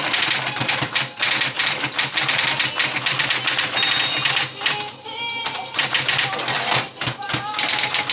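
Facit 1820 electric typewriter typing rapidly: fast mechanical key strikes over the steady hum of its motor. About five seconds in, the typing stops briefly and a ringing tone sounds.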